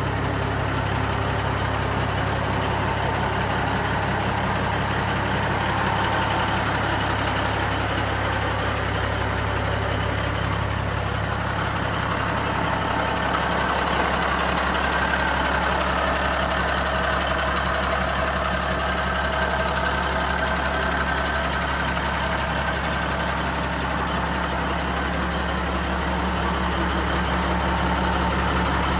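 Kenworth W900 truck tractor's diesel engine idling steadily, an even low drone, with one brief click about halfway through.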